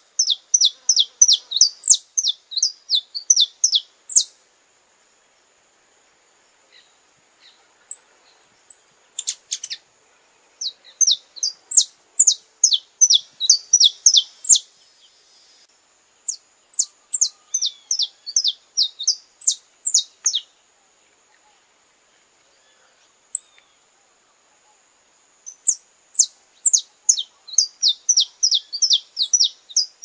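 Saffron finch singing: four bouts of fast, high notes that each sweep downward, every bout a few seconds long, with pauses of a few seconds between them.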